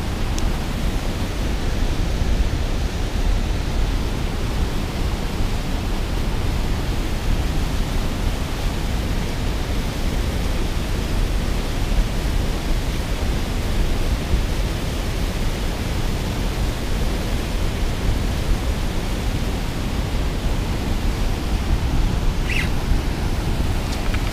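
Steady rush of turbulent water churning and foaming below a dam spillway.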